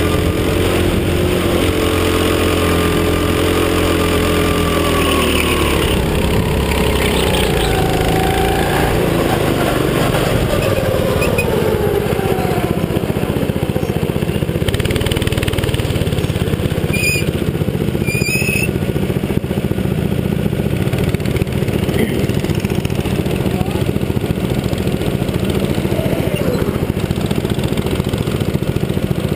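Go-kart engine heard from the driver's seat, running at steady high revs. After about six seconds the pitch falls as the kart slows, then the engine runs on rougher and noisier. Two brief high squeaks come about 17 and 18 seconds in.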